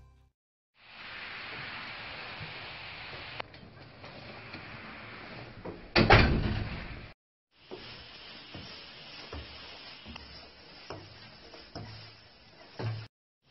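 Hissy room sound with one loud door noise about six seconds in, then a run of soft thuds and knocks, like footsteps on wooden stairs.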